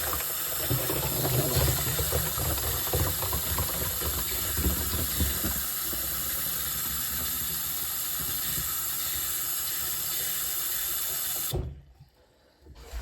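Water tap running into a plastic squirt bottle to fill it, with splashing and gurgling in the bottle during the first half, then shut off abruptly near the end.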